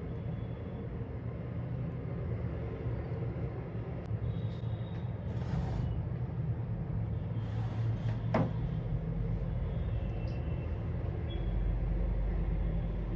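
Steady low hum of city road traffic, with a couple of short hisses in the middle and a sharp click a little after.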